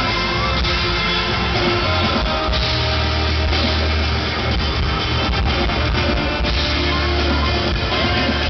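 Live rock band playing on an arena stage, recorded from the crowd: acoustic guitar, bass guitar and drum kit playing steadily at full volume.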